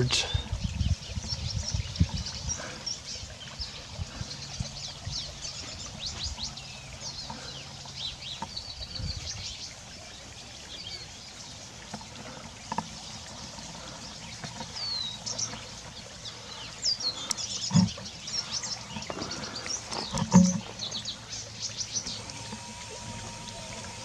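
Many small birds chirping and calling around feeders, short high calls scattered throughout. A couple of soft thumps stand out a little past halfway.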